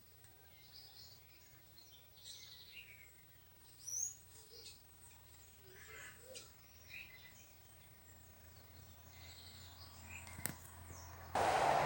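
Scattered short bird chirps and calls over a faint outdoor background. Near the end a sudden loud rushing noise cuts in.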